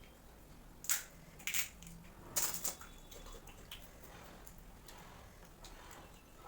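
Crunchy food being bitten and chewed close to the microphone: four sharp crunches in the first three seconds, then softer crackly chewing.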